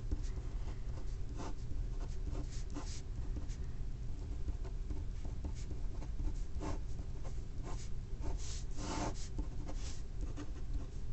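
Pen writing on paper: irregular short scratching strokes as figures and symbols are written, the loudest strokes coming a couple of seconds before the end, over a steady low hum.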